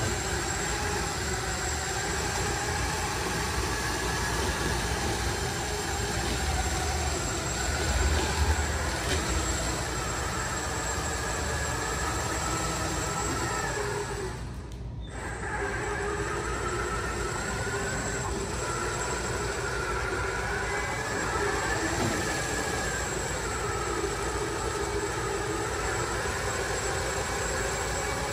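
Steady mechanical drone with a low rumble, dropping away briefly about halfway through.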